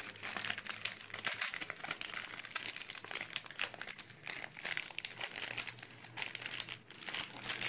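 Metallised foil toy sachets crinkling and rustling under the hands, a busy run of small crackles, as one is pulled at to tear it open.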